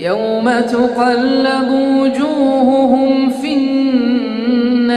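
A man chanting Quran recitation in the melodic tajweed style. He starts a new phrase right at the start with a rising note, then holds one long, ornamented line that wavers and bends in pitch.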